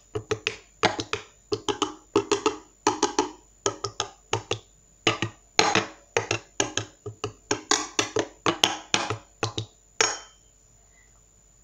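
A knife cutting into slime on a hard tabletop: a quick run of sharp taps and clicks, several a second, stopping about ten seconds in.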